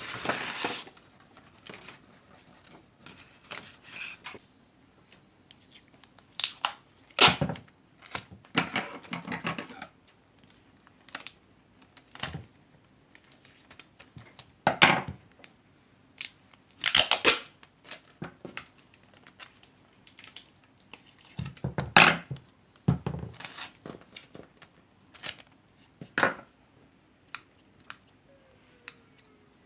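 Hand paper-craft sounds: short bursts of paper and tape being torn and handled, about a dozen separate strokes with quiet pauses between.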